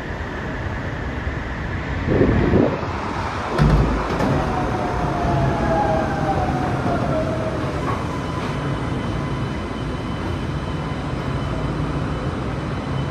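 Yokohama Seaside Line 2000-series rubber-tyred automated guideway train running, with a whine that falls in pitch and two heavy thumps about two and four seconds in.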